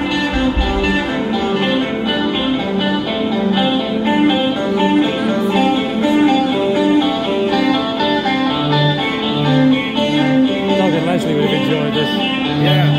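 Rock band playing live: guitar over a rapid run of repeating notes, with a low bass note pulsing in about two-thirds of the way through and a wavering, bending lead line near the end.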